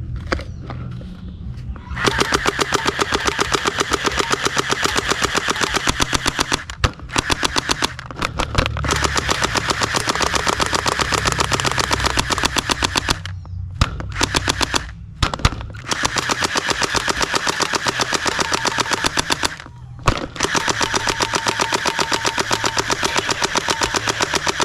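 Electric gel ball blaster firing on full auto: long runs of rapid, evenly spaced shots over a low hum, stopping briefly several times between bursts.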